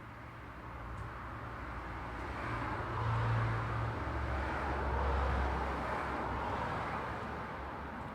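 Road traffic: passing vehicles' tyre and engine noise swells towards the middle and fades again near the end, with a low engine hum that drops in pitch about four seconds in.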